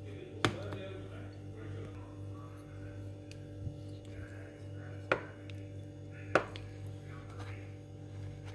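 Steady low hum with three sharp clicks of a metal serving utensil knocking against the dessert tray while scooping. The clicks come about half a second in and then twice more near the five- and six-second marks, the last one the loudest.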